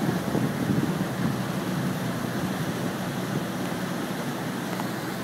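Motorboat engine running steadily while the boat cruises, a low even drone with the rush of water and wind over it.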